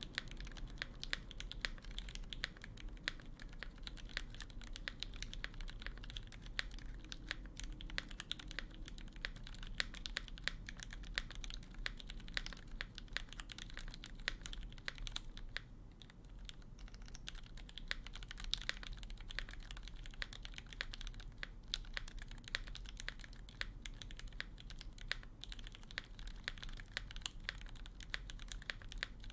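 Steady typing on a KBDFans D65 65% custom mechanical keyboard with lubed Gateron Milky Yellow linear switches, a polycarbonate plate and GMK keycaps: a fast, continuous run of key clacks, with a brief pause about halfway through.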